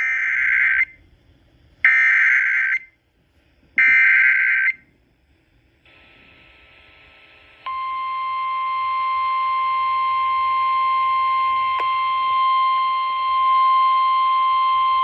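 Emergency Alert System SAME header for a flash flood warning: three one-second bursts of warbling data tones about a second apart. After a brief hiss, the steady single-pitch 1050 Hz weather-radio warning alarm tone begins about eight seconds in.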